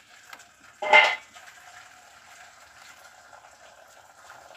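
Knife cutting pieces of sweet pumpkin, with one short loud clatter about a second in as a piece lands on a stainless-steel plate.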